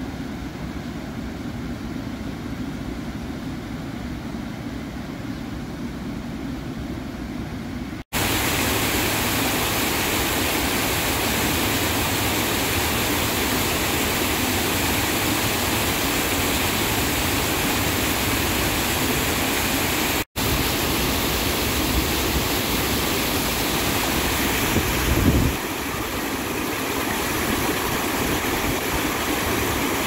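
Fast spring meltwater pouring over a low creek dam, a steady rushing of water that gets noticeably louder and closer about 8 s in. It drops out briefly twice, and there is a short low thump near 25 s.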